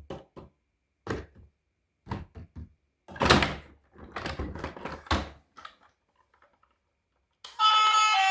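A series of short knocks, thunks and scrapes from objects being handled, the loudest about three seconds in. Music starts near the end.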